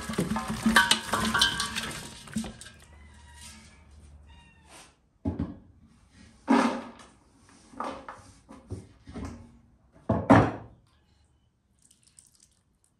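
Boiled beef hooves and broth sliding and splashing out of a pot into an enamel basin. Then a few separate knocks and scrapes as chopped onion is pushed off a wooden board into a large aluminium pot and utensils knock against it; the loudest knock comes about ten seconds in.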